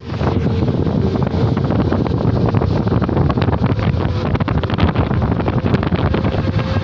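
Wind buffeting the microphone: a loud, uneven rumble with crackles.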